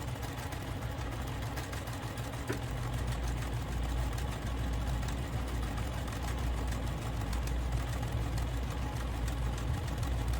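Domestic electric sewing machine running steadily, stitching a straight seam across a folded fabric pocket, a rapid even hum of needle strokes. A small click about two and a half seconds in, after which it runs a little louder.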